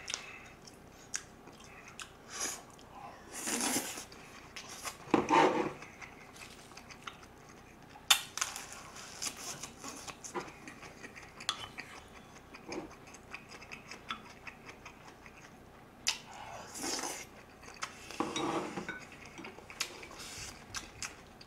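A person eating: chewing food, with scattered sharp clicks of chopsticks and a spoon against ceramic bowls and dishes.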